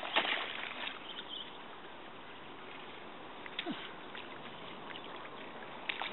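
Dry grass rustling and crackling, loudest in the first second, over a steady outdoor hiss. A short falling whine comes about halfway through.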